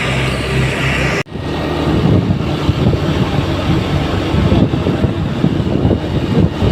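Roadside traffic noise: a steady engine hum breaks off abruptly about a second in, followed by louder, uneven rumbling road noise from passing vehicles.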